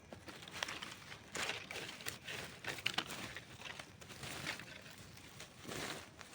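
Wood campfire crackling, with irregular sharp pops and snaps and short rushes of noise; the loudest pop comes about three seconds in.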